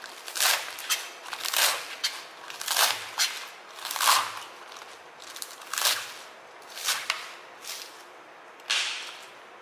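A kitchen knife chopping leafy cabbage on a plastic cutting board: about a dozen short chops at an uneven pace, coming slower after the first few seconds.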